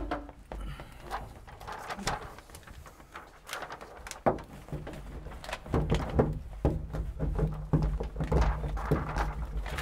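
Wooden-handled hand roller working foil-faced butyl sound deadener into the ribs of a Toyota LandCruiser 79 Series steel roof: irregular clicks and knocks, joined by a steady low rumble from about halfway through as the roller is run along the panel.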